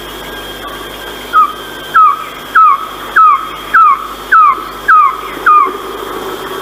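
Philippine trogon calling: a run of eight loud, short notes, each sliding sharply down in pitch, evenly spaced at a little under two a second, starting about a second and a half in.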